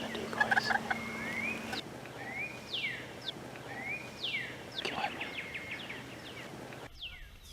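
A songbird calling: repeated whistled notes that slide up and then sweep down, about one every second and a half, over a faint steady hum.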